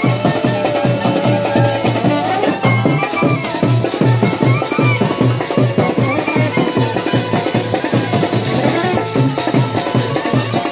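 Wedding brass band playing dance music: clarinets carry a wavering melody over a fast, steady drum beat.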